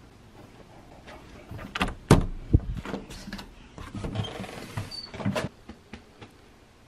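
A door being handled in a doorway: a few sharp knocks and thumps about two seconds in, then lighter knocks and rustling.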